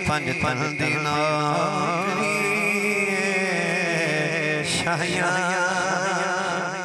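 A man singing a long, wavering melismatic line of Punjabi devotional kalam into a microphone over a public-address system, breaking off briefly about four and a half seconds in before going on.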